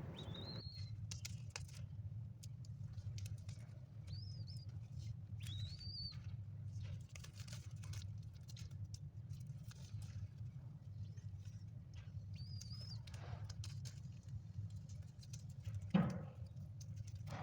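Baby dove giving a few short, high squeaks while being fed, over a patter of small clicks and taps; the bird is hungry. A single louder knock comes near the end.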